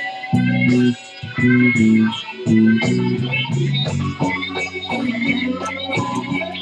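Electric blues guitars playing with bass, a riff in short repeated phrases separated by brief gaps.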